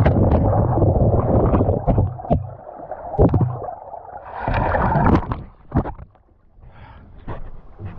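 Muffled underwater churning and bubbling, with many knocks, as the camera goes into the river with a capsized kayak. About four and a half seconds in it breaks the surface with a rush of splashing water, followed by scattered splashes and knocks.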